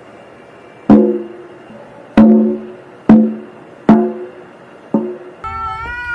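A cat's tail striking the head of a small tacked-head drum: five drum thumps at uneven intervals, each ringing briefly and dying away. Near the end, a cat begins a long, drawn-out yowl.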